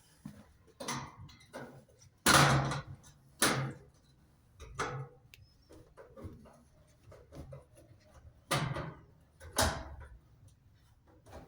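A string of irregular knocks and clatters, each short and fading. The loudest come in pairs, about two seconds in and again near the end.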